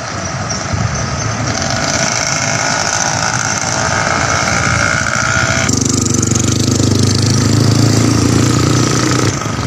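Street traffic: car and motorcycle engines passing on a paved street. A little past halfway the sound changes to a steadier low engine hum, as from a vehicle running close by.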